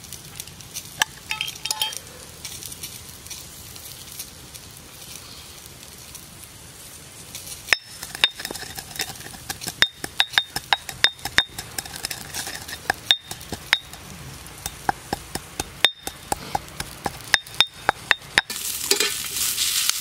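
Black peppercorns and sage crushed with a pestle in a stone mortar: after a quiet start, a run of sharp clicks and knocks, several a second, as the pestle strikes and grinds against the stone. Near the end it cuts to a cast-iron skillet of onions sizzling over a campfire.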